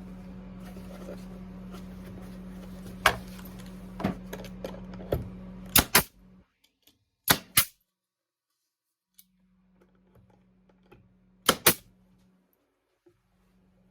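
Sharp snapping impacts, single and in quick pairs, over a steady electrical hum. The hum cuts out about six and a half seconds in and comes back faintly later.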